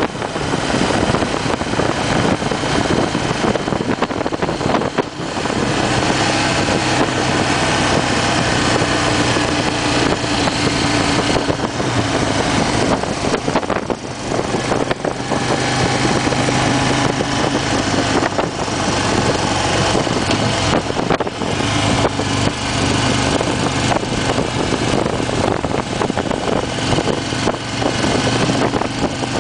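2008 Harley-Davidson Fat Bob's air-cooled V-twin engine running under way at road speed, with wind and road noise over the microphone. The sound dips briefly about five seconds in and again around fourteen seconds in.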